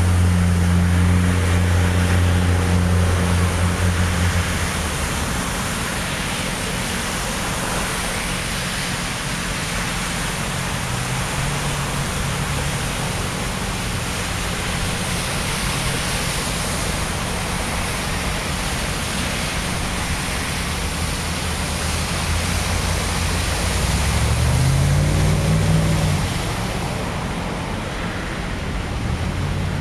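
Cars driving along a flooded road, their tyres splashing through standing water, over a steady rushing noise. A low engine hum is heard for the first few seconds, and late on a vehicle passes with its engine pitch rising and falling.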